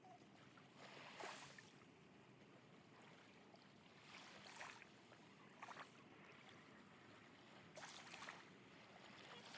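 Faint small waves of the Red Sea lapping at the shore, a soft wash every couple of seconds over a low hiss.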